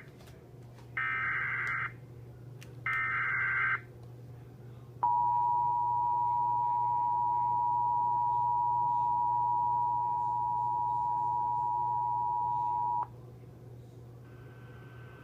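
Emergency Alert System tones on a TV broadcast, announcing a flash flood warning: two roughly one-second bursts of the SAME digital header's screechy data tones, then the two-tone EAS attention signal (853 and 960 Hz) held steady for about eight seconds before cutting off abruptly.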